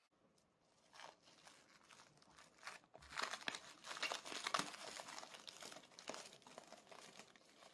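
Plastic cling wrap crinkling as it is peeled off a microwave-heated container. The crackling starts faint about a second in, grows louder from about three seconds in, then tapers off near the end.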